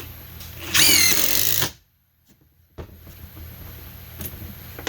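DeWalt cordless impact driver driving a screw in a loud burst of about a second, its motor whine wavering, then cutting off suddenly.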